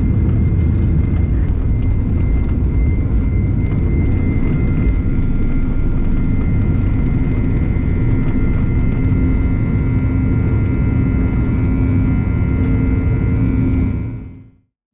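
Jet engine noise of a Boeing 737-900ER heard inside the cabin: a loud, steady rumble with a steady high whine over it. It fades out quickly near the end.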